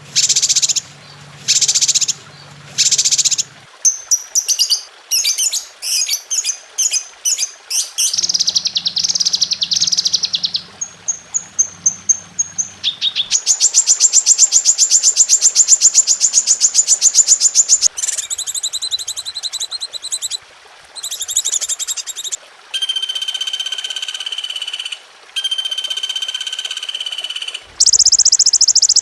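A medley of different songbird calls and songs spliced one after another, as on a masteran tutor recording for caged songbirds. It runs through repeated chirps and a fast, steady trill to clear whistled notes, with an abrupt change of bird every few seconds.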